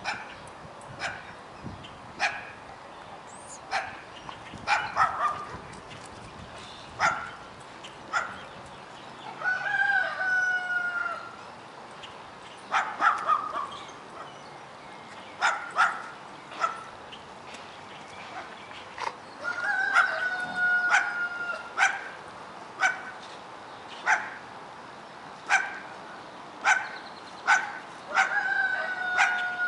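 Two German Shepherd puppies play-fighting, with short sharp yips and barks every second or two. Three times, about ten seconds apart, a long held call of about two seconds sounds over them.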